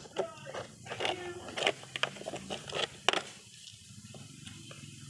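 Hard plastic parts of a toy construction vehicle clicking and knocking as they are worked with a screwdriver and handled, several sharp clicks in the first three seconds, then only a few faint ticks.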